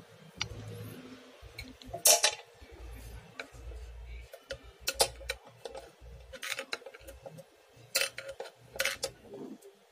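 Light metallic clicks and clinks at irregular intervals, the loudest about two seconds in and near eight seconds: long-nose pliers working a circlip on a scooter's kick-starter shaft.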